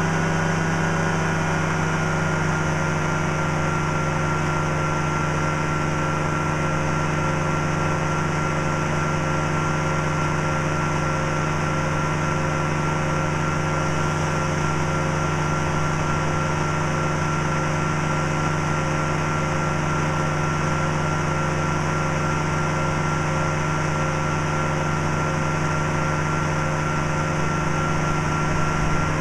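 Powered parachute's rope-started engine and propeller running at a steady pitch in level flight, heard from the cart, an unbroken loud drone.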